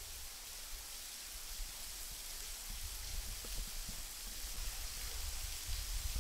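Steady hiss of water falling and dripping in a rock cave, with an uneven low rumble of wind on the microphone.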